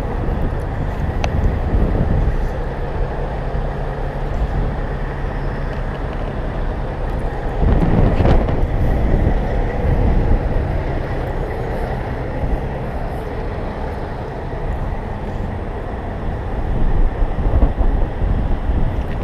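Steady low rumble of an engine running, with a louder swell about eight seconds in.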